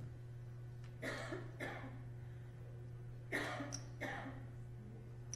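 A person coughing: two double coughs about two seconds apart, over a steady low hum.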